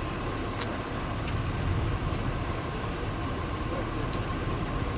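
Wind rushing and buffeting the microphone in a thunderstorm's inflow: a steady, uneven low rumble with a faint steady tone and a few light clicks.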